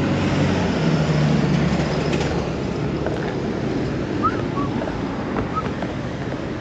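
A motor engine's low hum, loudest in the first two seconds and then fading, over steady wind noise on the microphone. Two short high chirps come near the middle.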